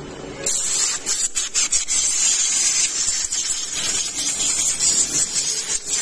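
Compressed-air blow gun hissing as it blows drilling dust out of freshly drilled lock holes on a door edge. It starts sharply about half a second in and stutters briefly a few times in its first second.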